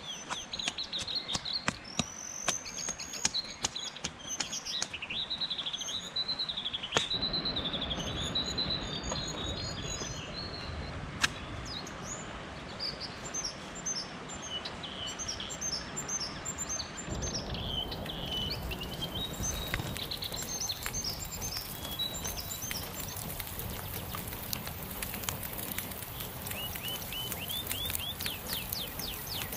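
Several songbirds singing and chirping, with scattered sharp clicks and knocks of sticks and stones being handled, over a steady background hiss that grows broader about two-thirds of the way through.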